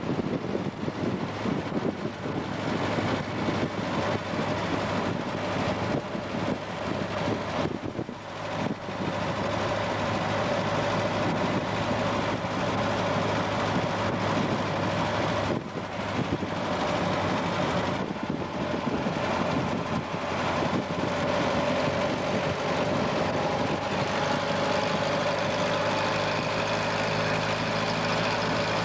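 Engine and road noise inside a vintage car cruising at highway speed: a steady drone with wind noise, briefly dropping away about eight and again about sixteen seconds in.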